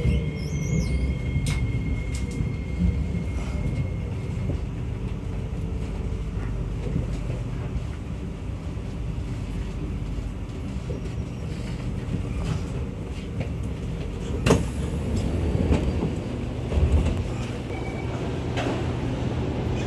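Kawasaki Nippon Sharyo C751B metro train slowing to a stop at a station platform, its motor whine falling in pitch in the first second, then a steady rumble and hum of the train standing. A single sharp knock about two-thirds of the way through.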